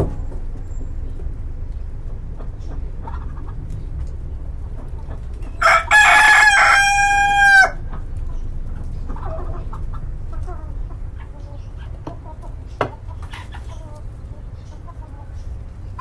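A rooster crows once about six seconds in, a two-second call that ends on a held note. Chickens cluck softly in the following seconds over a steady low background noise.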